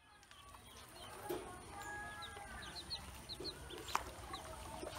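A group of ducklings peeping: many short, high chirps overlapping, several a second, with a few longer held notes. A single sharp click about four seconds in.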